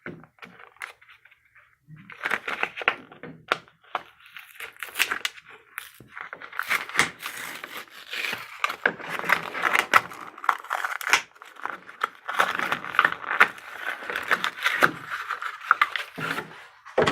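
Toy packaging being pulled and torn open by hand, with irregular crackling, rustling and sharp clicks that start about two seconds in and go on with short pauses.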